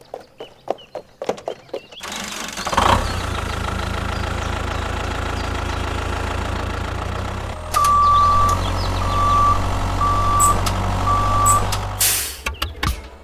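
A few clicks and taps, then a truck engine starts about two seconds in and runs steadily. About halfway it gets louder and a reversing alarm beeps four times, and the engine cuts off suddenly near the end.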